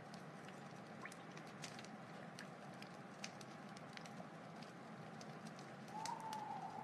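Wood fire crackling: scattered small pops and snaps over a soft steady hiss. About six seconds in, a thin whistling tone comes up and holds.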